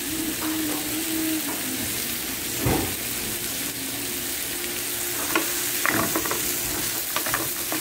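Mixed vegetables sizzling in olive oil in a non-stick frying pan, with a dull knock about three seconds in. In the second half a wooden spatula scrapes and clatters against the pan as the vegetables are stirred.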